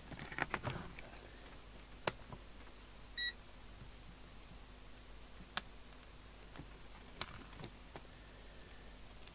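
A single short electronic beep about three seconds in, among scattered sharp clicks and knocks of small objects being handled on a bench.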